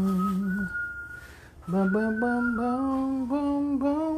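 Solo voice singing a slow R&B-style vocal line without clear words, with held notes that waver slightly. It breaks off for about a second near the start, then carries on.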